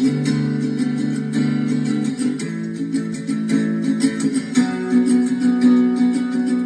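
Acoustic guitar strumming held chords with no voice, the chord changing twice.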